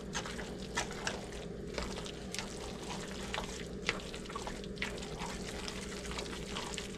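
A utensil stirring a thick, cheesy mixture of chicken and broccoli in a pan, with wet squelching and irregular clicks and scrapes against the pan, over a steady low hum.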